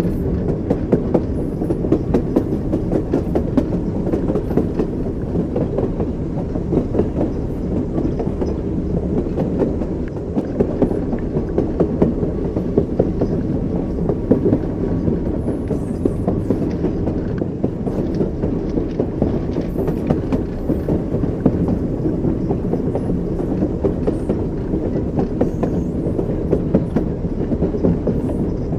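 Train wheels clicking over rail joints, with a steady low rumble of a moving train. The click-clack runs on without a break, the wheels knocking over the joints every second or so.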